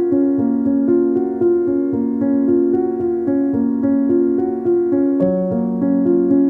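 Background music: a bright keyboard melody of quick, even notes over a sustained lower part, with a lower bass note coming in about five seconds in.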